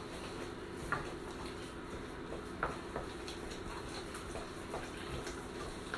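Bamboo spoon beating egg into stiff choux pastry dough in a stainless steel saucepan, with a few irregular sharp knocks of the spoon against the pan over a low steady hum.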